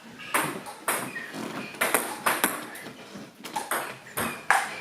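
Table tennis rally: the ball clicking off bats and table in quick succession, about two knocks a second.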